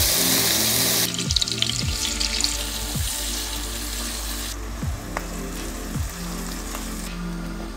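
Sliced onions frying in hot oil in a pan: a sizzle with crackles, loud for the first few seconds and quieter after about four and a half seconds, over background music.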